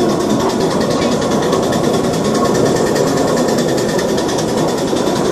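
Ride-on miniature train running along its narrow-gauge track, heard from aboard a passenger car: a steady, rapid mechanical clatter of wheels on rails and the running locomotive.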